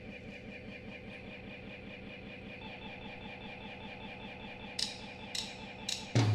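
Quiet, sustained electric guitar drone through the amplifier, held steady with a fast pulsing shimmer, in a break in the song. Near the end come three sharp ticks from the drum kit, about half a second apart, just before the full band comes back in.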